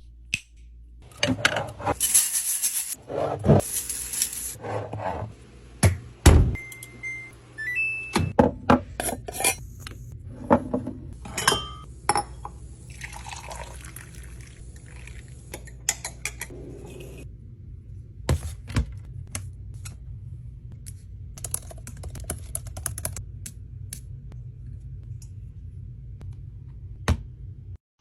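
Food containers and snack packets being handled and set down: a run of clicks, taps and knocks with a few short pours or rustles, over a steady low hum.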